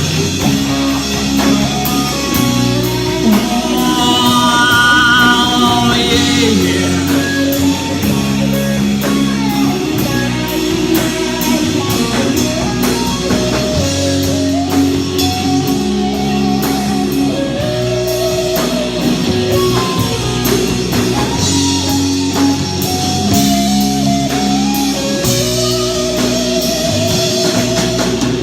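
A live rock band plays an instrumental break: a guitar carries a wavering lead melody over a steady bass line and a drum kit with regular cymbal hits.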